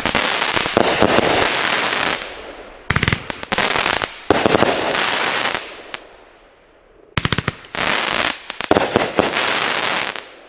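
500-gram fireworks cake firing in three volleys of rapid shots and gold crackling breaks, each lasting two to three seconds with short lulls between, the last one dying away near the end.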